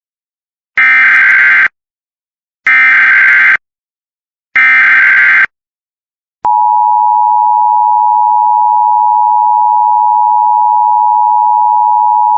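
Emergency Alert System alert tones. Three short bursts of SAME header data come about two seconds apart, each roughly a second long. Then, about six seconds in, the steady two-tone EAS attention signal (853 and 960 Hz) starts and holds.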